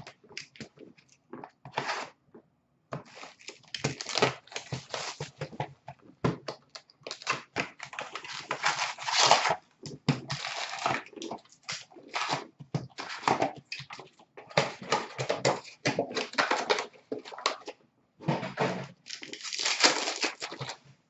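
Hockey card packaging being torn open by hand, with cards handled and shuffled: irregular bursts of crinkling, ripping and rustling, with a couple of short pauses.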